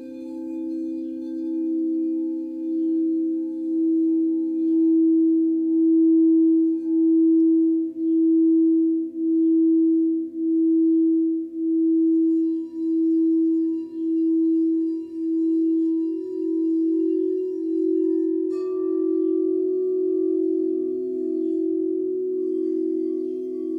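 Singing bowl sounding a steady low tone that swells over the first few seconds and pulses in a slow wobble about once a second. About eighteen seconds in, a second, higher-pitched bowl is struck and rings on over it.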